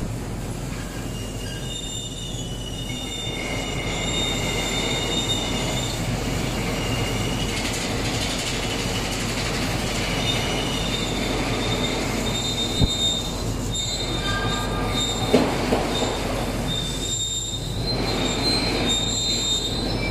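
Double-head 130 W laser cutter at work: the moving heads' drive gives short, high whining tones that start, stop and change pitch, over a steady hiss. A few sharp clicks come about two thirds of the way through.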